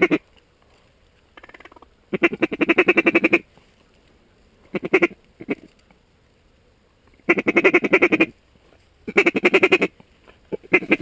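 Mallard duck call blown close by in rapid strings of hen quacks and chatter, about six loud bursts with short pauses between them, calling in incoming mallards.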